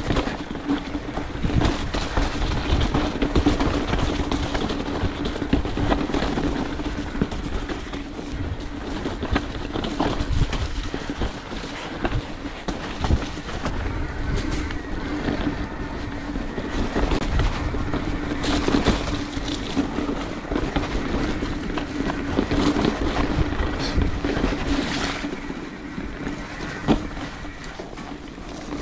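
Mountain bike rolling fast down a rough dirt singletrack: tyres crunching over dirt and rock with frequent knocks and rattles from the bike, over a steady hum and rushing wind noise.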